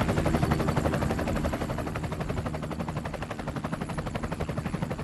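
A fast, even chopping pulse, about ten beats a second, over a low rumble, slowly fading: a helicopter-like rotor sound.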